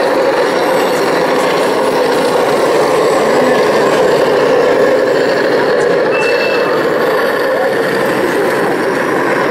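1:16 scale RC model tank driving, its sound unit playing a steady engine rumble, with a short high beep about six seconds in.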